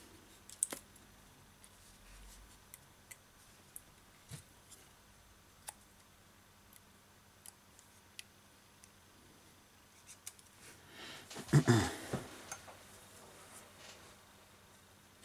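Hands handling an opened smartphone, making scattered light clicks and taps, with a louder cluster of knocks and rubbing about three-quarters of the way through.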